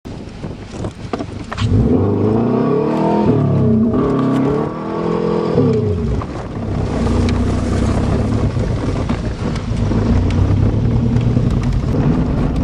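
Subaru Legacy's engine revving up and down several times, its pitch rising and falling, then running steadily under way.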